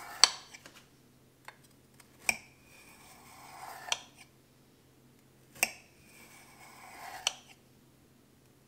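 Kitchen knife cutting a baked shortbread slab in a ceramic baking dish: a scraping sound along each cut, and a sharp click of the blade against the dish about every one and a half to two seconds, five in all, the first the loudest.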